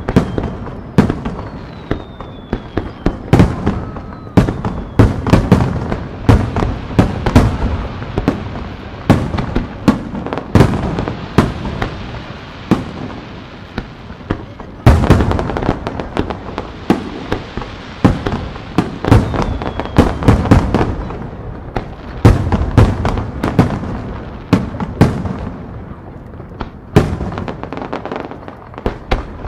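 Aerial firework shells bursting in quick succession, sharp bangs and deep booms coming several to a second, each trailing off in echo. A few faint falling whistles sound in the first few seconds, and the bursts thin out toward the end.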